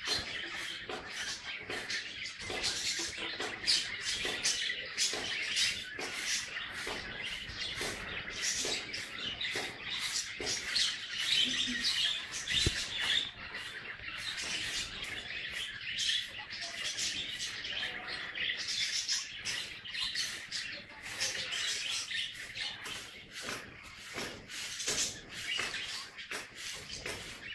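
Many small birds chirping continuously, a dense chorus of short, quick chirps.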